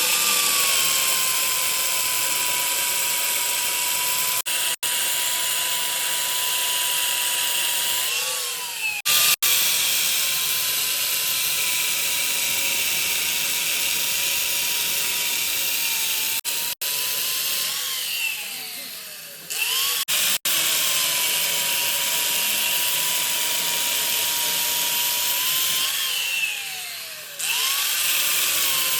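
Electric power tool's motor whining steadily at high speed. Its pitch dips and spins back up three times: twice briefly, and once in a longer glide down and back up.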